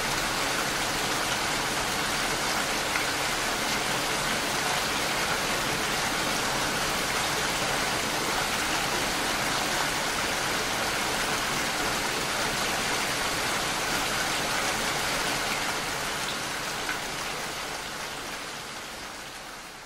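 Steady, dense rainfall, fading out over the last few seconds.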